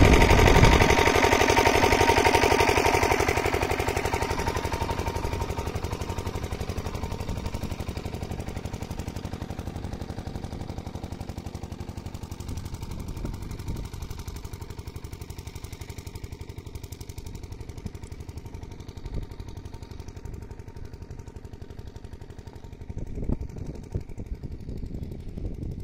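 Single-cylinder diesel irrigation pump set running with a rapid, steady thumping, growing fainter over the first several seconds as the distance to it grows. A few louder knocks come near the end.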